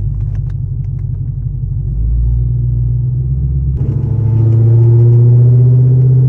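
Holden VE SS wagon's V8 through a 3-inch straight-piped stainless exhaust, heard inside the cabin while driving: a deep, steady exhaust drone that swells louder and slightly higher about four seconds in as the revs build. The drone is at its worst around 2,000 rpm.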